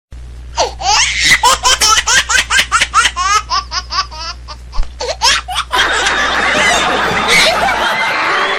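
Hearty, high-pitched laughter in rapid repeated bursts, then a denser, noisier stretch from about six seconds in.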